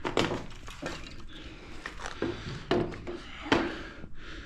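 Metal engine parts and tools knocking and clinking during cylinder head removal, a handful of sharp knocks at irregular intervals.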